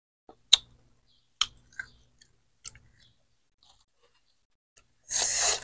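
Sharp, separate clicks and crunches of someone eating dried fish by hand, four in the first three seconds. A short burst of paper-towel rustling follows near the end.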